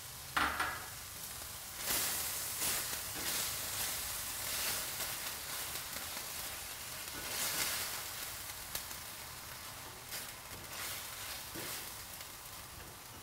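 Mushroom, tomato and fresh-cream sauce sizzling in a stainless steel skillet over a gas flame, stirred with a silicone spatula, with a series of louder swishes from the stirring strokes.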